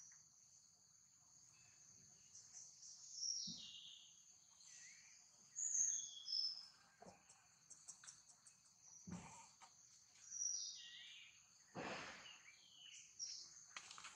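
Forest ambience: a steady, high insect drone throughout, with several short calls sliding downward in pitch and a few soft knocks, the loudest near the end.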